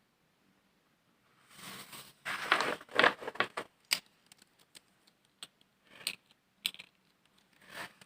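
Rustling and crinkling, like paper or plastic being handled or torn, for about two seconds after a quiet start, followed by scattered light clicks and taps.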